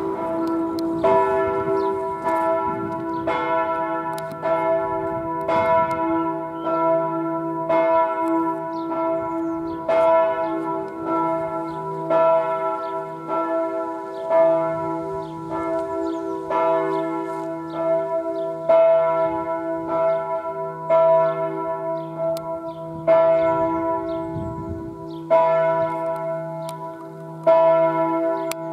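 Church bells ringing, a fresh stroke about every second, each stroke's hum carrying over into the next.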